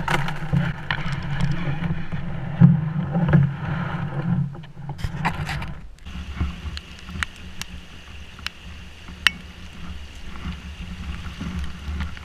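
Canoe hull being hauled over rough ground, knocking and scraping, heard through a camera fixed to the canoe. About halfway through this gives way to a deeper rumble with a few sharp clicks.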